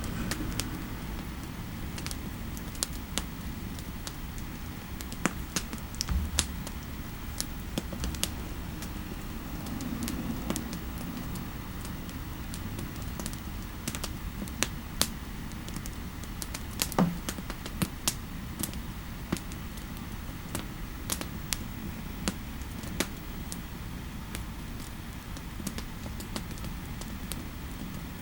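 Typing on a computer keyboard: scattered keystrokes at an uneven pace with short pauses, over a steady low background rumble. One heavier knock comes about two-thirds of the way through.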